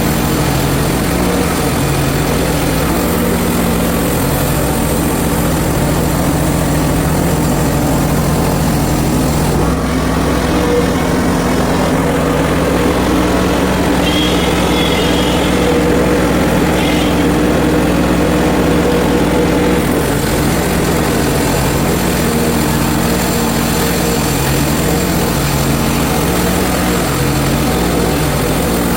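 Small gasoline engine of a Hud-son portable band sawmill running steadily. The high hiss eases off for about ten seconds in the middle.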